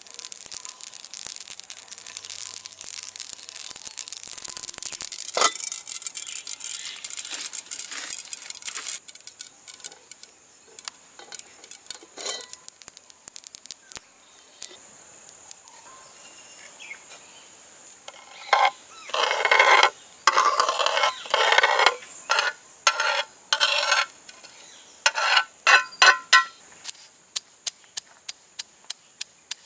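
Dry seeds rattling and hissing as a metal spoon scoops and stirs through a heap of them. Then come a few scattered clicks and loud swishing bursts of seeds moving in a metal pan. Near the end a stone pestle pounds the seeds in a stone mortar with sharp knocks, about two a second.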